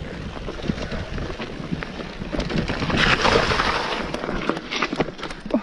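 Mountain bike ridden over a forest dirt trail: tyre noise over the ground with many short knocks and rattles from bumps, and a stronger rush of noise about three seconds in.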